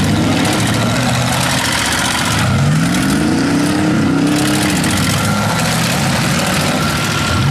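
Demolition derby cars' engines running hard, one revving up in a rising whine about two and a half seconds in, holding high for a couple of seconds, then dropping back.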